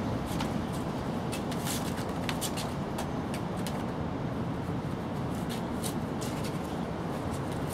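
Steady low background rumble with irregular light clicks and scratches, several a second, from tabby kittens' claws and paws scrabbling on wooden deck tiles as they wrestle over their mother.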